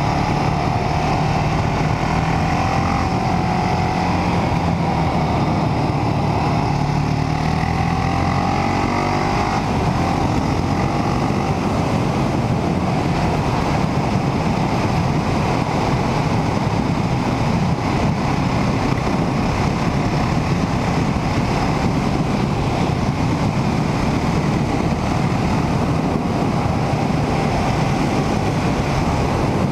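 KTM 690 Duke's 690 cc single-cylinder engine pulling steadily under way, heard from the rider's position. Its pitch is clear and rises around the middle, then blurs into a steady rush of engine and wind noise at road speed.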